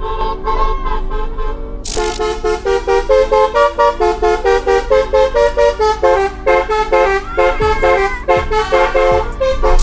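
Background electronic music with a steady beat and a synth melody, growing fuller about two seconds in.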